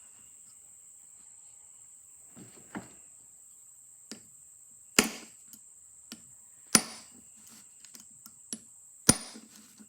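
Small punch being struck to drive out the stuck bearing of a Victor M phonograph governor: a few light taps, then three sharp metal-on-metal strikes about two seconds apart.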